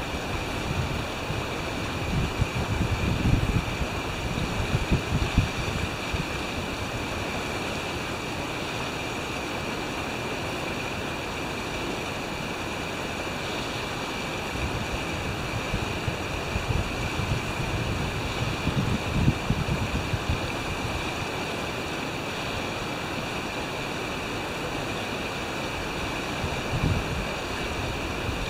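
Steady rush of open water with waves, and a few low gusts of wind buffeting the microphone: a few seconds in, about two-thirds of the way through, and again near the end.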